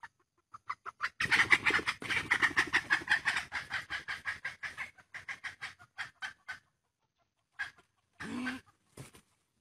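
Junglefowl giving a rapid alarm cackle, a fast run of sharp squawks that thins out after a few seconds, then two louder, drawn-out squawks near the end. Dogs are closing in on the bird.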